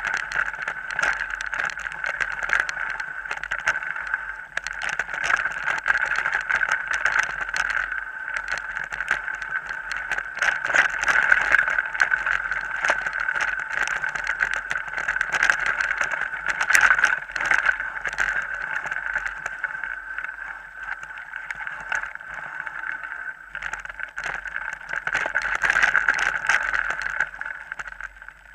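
Mountain bike riding over a rough dirt singletrack, heard through a camera carried by the rider: a steady rushing noise with frequent knocks and rattles as the bike goes over bumps.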